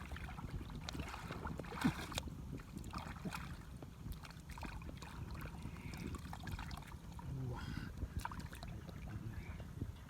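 Shallow, muddy water splashing and sloshing in short, irregular bursts, as when hands grope through it for catfish.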